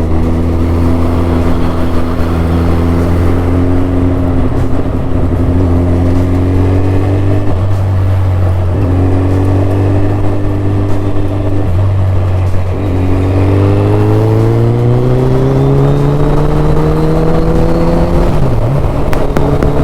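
Suzuki Hayabusa's 1340 cc inline-four engine running under load on the move. Its pitch climbs slowly, with short breaks at gear changes about 8 and 13 seconds in, then rises steadily as it accelerates and dips briefly near the end.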